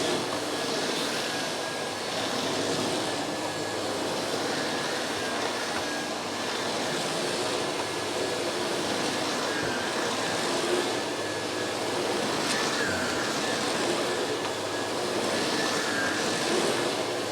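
Miele S5 Callisto canister vacuum cleaner running with its small powerhead on carpet: a steady motor whine under a rushing hiss that swells and eases every couple of seconds as the head is pushed back and forth.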